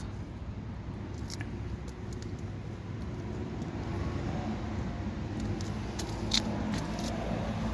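A steady low engine-like hum that grows a little stronger after about five seconds, with a few faint light metallic clicks.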